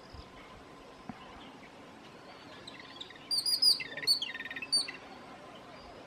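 Jungle babbler calling: a burst of short, sharp, high-pitched squeaky notes mixed with a quick chatter, starting about three seconds in and lasting about a second and a half.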